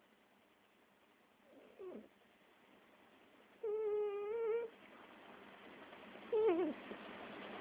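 Cat snoring with squeaky whistles: a short falling squeak about two seconds in, a held, slightly wavering whistle about a second long in the middle, and another falling squeak near the end, over faint breathing that slowly grows louder.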